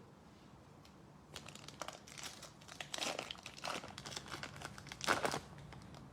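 Trading-card pack wrapper and cards crinkling and rustling as they are handled, starting about a second in as irregular rustles, loudest near the end.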